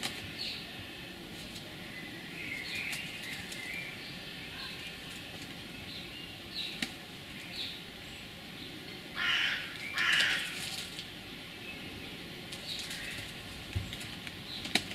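Birds calling in a garden: short high chirps repeat about once a second, and two louder harsh bursts come about nine and ten seconds in.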